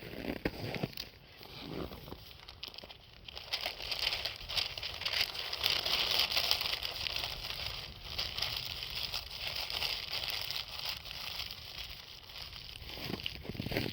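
Wood campfire crackling: a dense run of small pops and snaps over a steady hiss of burning, busiest around the middle.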